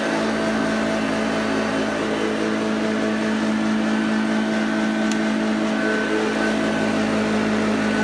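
Hoover Junior U1104 upright vacuum cleaner running steadily on carpet: an even motor hum over the rush of suction, with no change in speed.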